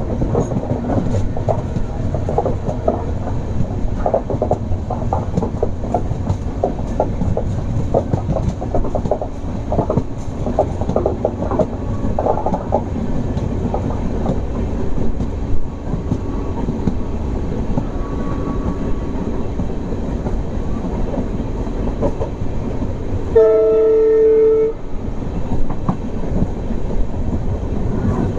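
Express train running at speed, wheels clattering over the rail joints. Near the end the WDP 4D diesel-electric locomotive's horn sounds once, a single steady blast of about a second and a half.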